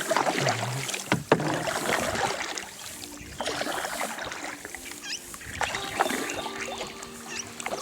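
A canoe being paddled: paddle strokes dipping and splashing in the water, with two sharp knocks about a second in.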